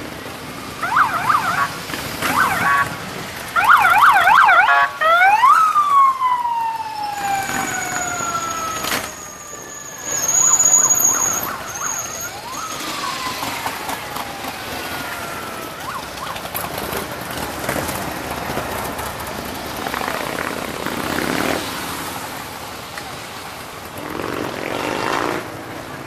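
A siren sounds in short runs of fast up-and-down warbling, then twice lets out a long wail that falls in pitch as it winds down. A thin high whistle sounds briefly in the middle, and motorcycles run by underneath.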